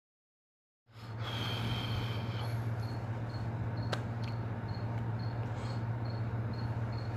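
A steady low hum that starts about a second in after dead silence, with faint high chirps repeating about twice a second and a single click near the middle.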